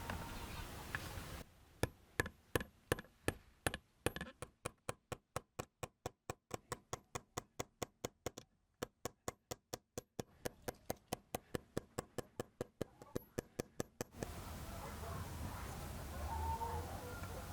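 Rapid, even tapping or knocking, about three to four strokes a second, with a brief pause midway. It stops about two-thirds of the way through, and a cat meows near the end.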